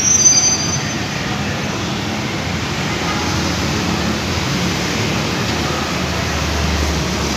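Steady low rumble of vehicle engines in a bus depot, with a brief high-pitched squeal in the first second. A deeper engine hum swells near the end as a car pulls closer.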